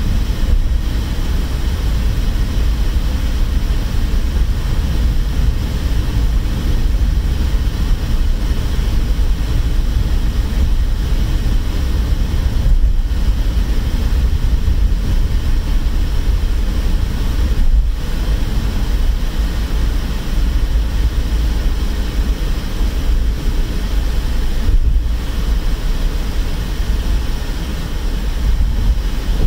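Steady low rumble of road and engine noise inside the cabin of a car cruising along a highway bridge.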